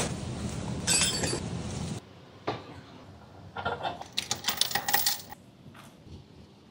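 A loud, steady rushing noise with a low hum that cuts off suddenly about two seconds in, followed by a run of light metallic clinks and clicks of small metal tools or parts being handled on the floor.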